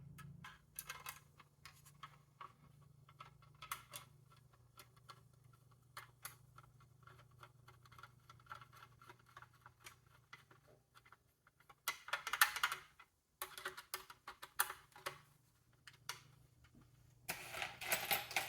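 Small clicks and rattles of plastic and metal computer parts being handled, with two longer bursts of scraping and rustling, one about twelve seconds in and one near the end, over a steady low hum.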